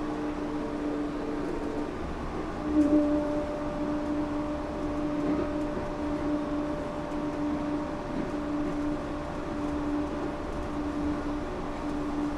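Inside a Yurikamome rubber-tyred driverless train running between stations: a steady rumble of running gear with humming tones from the drive that pulse in and out. One higher tone sets in about three seconds in, alongside a brief louder knock.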